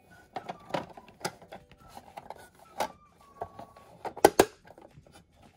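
Small plastic toy pieces clattering and knocking as they are pushed into a hard plastic playset case. Just after four seconds in, the case's plastic doors snap shut with two loud, sharp clicks.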